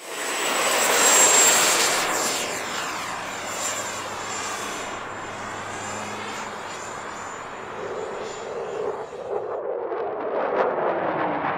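E-flite F-18's 80 mm electric ducted fan flying past: a steady high-pitched whine over a rushing of air, loudest about a second in and easing off afterwards. Near the end the whine stops and a different rushing sound with sharp crackles takes over.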